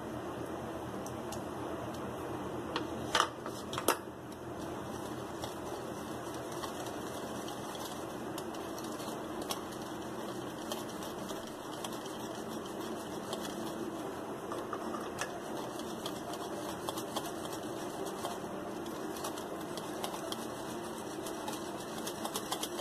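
Wire balloon whisk beating runny egg-and-sour-cream cake batter by hand in a ceramic bowl: a steady, fast clicking of the tines against the bowl. Two sharper knocks sound about three and four seconds in.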